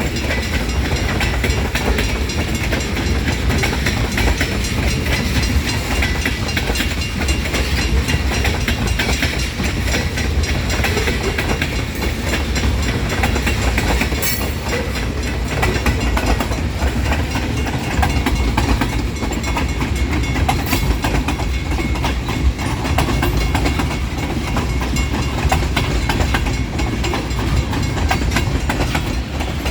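Long Great Lakes Central train's cars rolling past at a steady pace, a continuous rumble of wheels on rail with a constant clatter of clicks over the rail joints.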